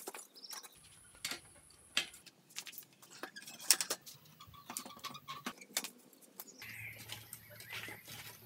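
Irregular metallic clicks and knocks as a spanner works the rusty rear axle nut of an old mountain bike and the wheel and frame are handled.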